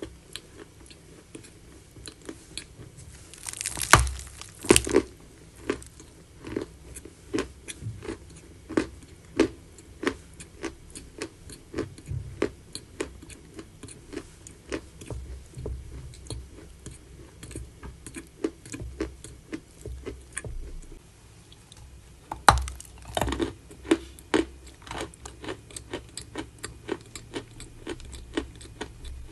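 A person biting and chewing crunchy edible chalk close to the microphone. Two loud crunching bites about four seconds in and another about two-thirds of the way through, with steady crisp chewing between them at about one and a half chews a second.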